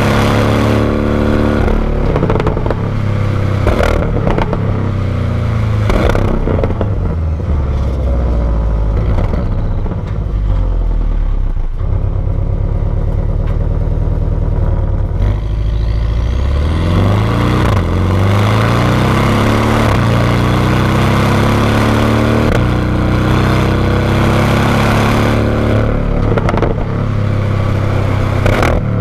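Stock exhaust of a 2019 Porsche 718 Cayman GTS's turbocharged flat-four, recorded close to the tailpipes while driving. The engine note rises at the start and holds steadier through the middle, then climbs steeply as the car accelerates again about two-thirds of the way in, with a few sharp knocks near the beginning.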